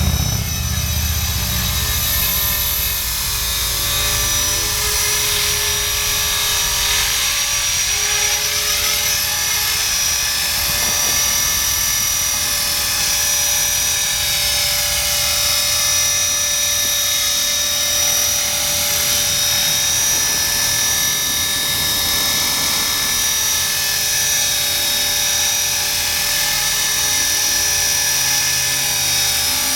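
Blade 400 electric RC helicopter hovering: its motor and main rotor running steadily, with a steady high-pitched whine.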